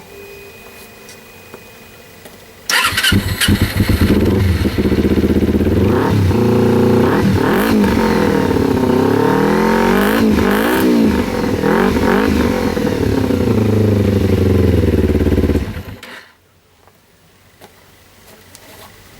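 Kawasaki Ninja 250R's parallel-twin engine starting about three seconds in, idling, revved up and down several times, then switched off about three seconds before the end.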